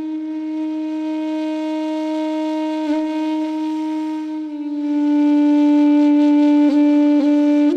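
Background music: a wind instrument holds one long, steady note, dipping briefly in pitch a few times, then slides up to a higher note near the end.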